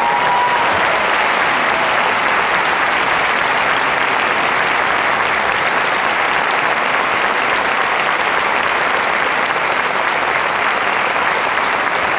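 Audience applauding steadily, a dense unbroken wash of clapping, right after a concert band's final chord.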